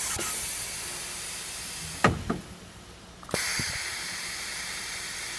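Compressed air hissing from a Siemens electro-pneumatic valve positioner as it drives the valve actuator through its automatic calibration stroke. There are two long rushes of air with a pair of short knocks and a brief lull between them about two seconds in.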